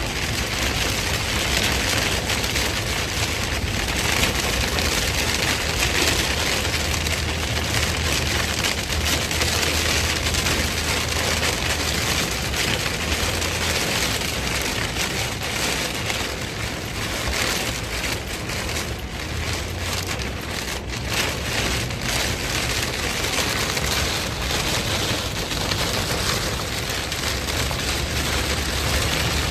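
Heavy rain falling steadily, an even hiss of drops with a low rumble underneath.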